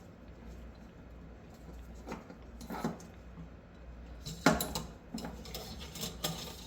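Cleaning rod and patch being worked through an SKS rifle barrel: scattered metal clicks and scrapes, sparse at first and then a busier run with one sharp snap about halfway through.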